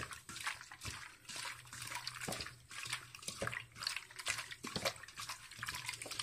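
A hand squishing and rubbing small cleaned fish through a wet wheat-flour paste in a stainless steel bowl, making irregular wet squelches. It is a flour rub that is part of cleaning the fish.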